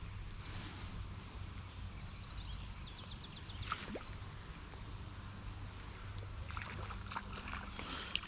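Quiet lakeside ambience with a steady low rumble. A small bird sings a fast trill of high notes in the first half, and a few soft clicks and rustles come near the end.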